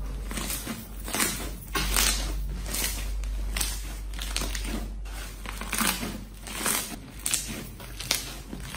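Hands squeezing and kneading a large blue-and-white cloud slime, giving irregular crackling, crinkling squishes with each press and pull.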